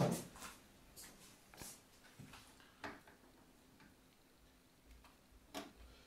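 Faint, scattered light taps and clicks, a few seconds apart, as a kitten moves about inside a plastic mop bucket, its paws and body knocking the plastic.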